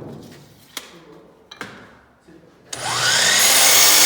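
A few light knocks, then about three seconds in an electric power saw starts with a rising whine and runs loud.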